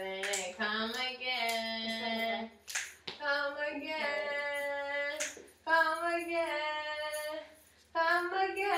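A woman's voice singing long held notes in phrases of one to two seconds, with short gaps between them. Sharp knocks or claps sound between the phrases.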